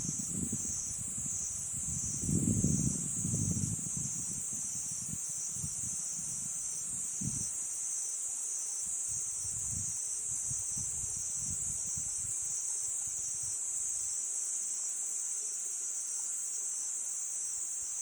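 Crickets chirring in a steady, high-pitched drone with a slight even pulse. Gusts of wind buffet the microphone as a low rumble, loudest about two to three seconds in, then die away about two-thirds through.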